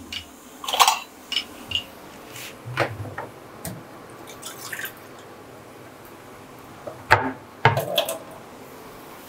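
A little water being added to an aluminium kadai of frying onions and tomatoes, heard as a series of separate drips and splashes, loudest about a second in and again near the end. The water keeps the masala from sticking to the pan.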